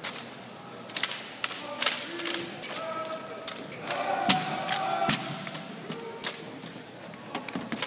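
Armed exhibition drill: drill rifles slapped and caught and boots stomped on a hard arena floor, a string of sharp irregular claps and thuds. Voices rise briefly in the middle.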